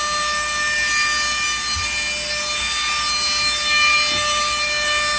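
Angle grinder with a grinding wheel cutting through a stripped steel bolt: a steady motor whine over the continuous grinding noise of the abrasive wheel on metal.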